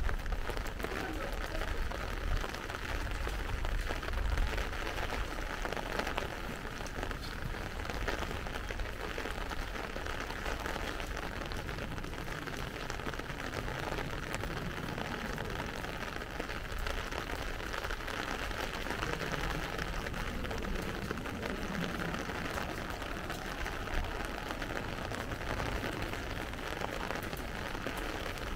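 Light rain falling, a steady, even hiss, with a low rumble during the first few seconds.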